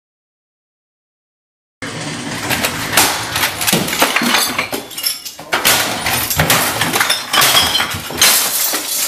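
Silence for about the first two seconds, then a rapid run of crashes, bangs and breaking, clinking clatter as things are smashed and knocked over in an angry outburst.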